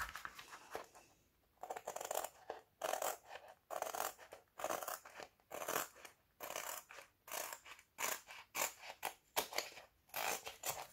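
Scissors cutting through the border of a diamond painting canvas: a steady run of crisp snips, about two a second, with a short pause about a second in.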